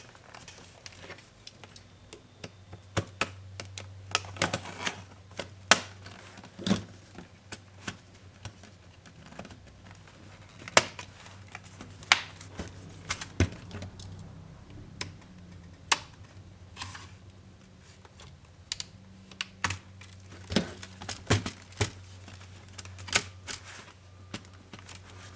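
Irregular sharp clicks and taps of small tools, screws and plastic laptop parts being handled, over a faint low hum.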